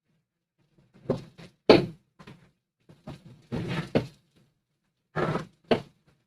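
Irregular knocks and clunks of kitchen work, utensils and cookware being handled, about a dozen over a few seconds, the loudest about two seconds in.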